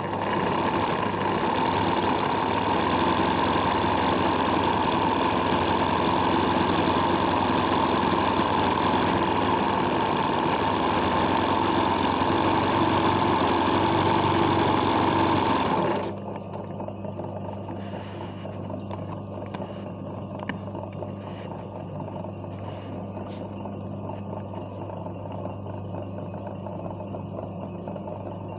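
Sewing machine running fast and steadily while doing freehand hoop embroidery, then stopping abruptly about sixteen seconds in. A quieter steady hum with a few light clicks remains after it stops.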